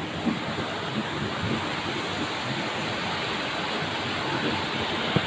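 Heavy thunderstorm downpour: rain pouring as a steady, even hiss, with one short sharp click just before the end.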